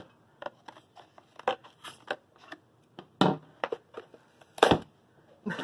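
A Fiskars tag punch's plastic blister pack being cut open with scissors and pulled apart: a string of irregular snips, cracks and crinkles of stiff plastic and card, loudest about three seconds in and near the end.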